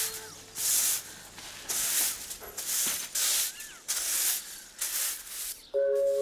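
Long-handled broom sweeping a dirt street, one swishing stroke about every second, with faint bird chirps. Background music comes in near the end.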